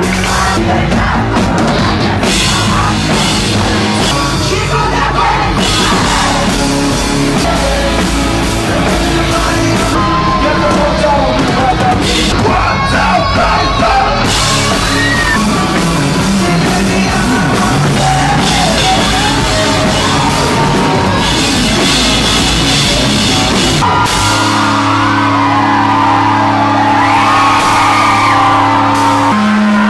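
Rock band playing live with drums and a singer yelling the vocals. About 24 seconds in the drums drop out, leaving a held chord under the voice.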